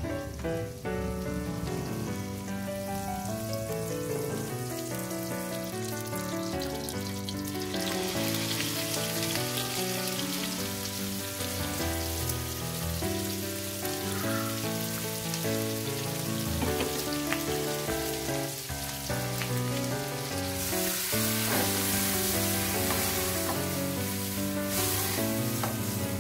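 Pork slices frying in butter in a frying pan, their sizzle coming up about a third of the way in and growing louder near the end, under continuous background music.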